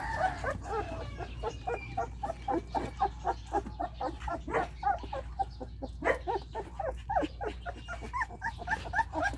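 A litter of 18-day-old German Shepherd x Belgian Shepherd puppies crying: short high-pitched calls in a rapid, unbroken string, several a second, from more than one pup.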